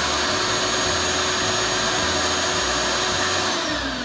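Shop vac motor running steadily with a high whine, then winding down in pitch about three and a half seconds in as it is switched off.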